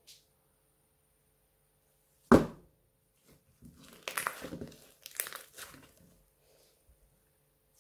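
Slime being squeezed and folded by hand. There is one sudden loud pop about two seconds in, then a couple of seconds of crackling, squelching air-bubble pops as it is pressed.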